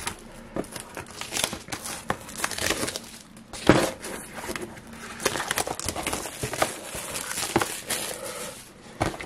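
Plastic shrink-wrap being torn and crumpled off a cardboard model-kit box: irregular crinkling and crackling, with one sharper snap a little under four seconds in.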